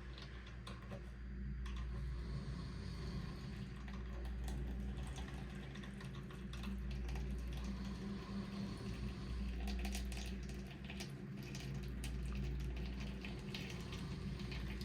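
Pickup truck on the move: a steady low road and engine rumble, with scattered faint clicks.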